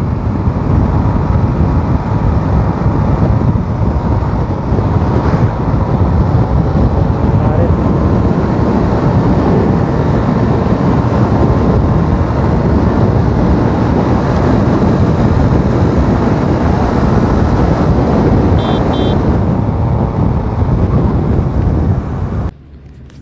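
Motorcycle riding at road speed: steady wind rush over the microphone with the engine running underneath. Two short high beeps sound about 19 seconds in, and the sound drops away sharply about a second before the end.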